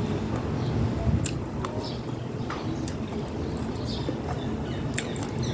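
Close-up wet chewing of a spicy seafood instant-noodle salad, with scattered small squelches and lip clicks.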